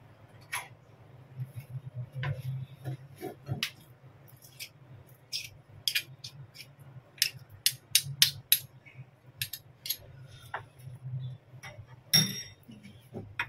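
Irregular light clinks and taps of a spoon against a ceramic bowl while minced fish paste is scooped out, over a low steady hum.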